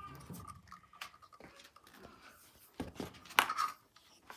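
Plastic filter housings of a Culligan AC-30 reverse-osmosis drinking water unit knocking and clicking as the unit is lifted out and handled, with a sharp knock about three and a half seconds in.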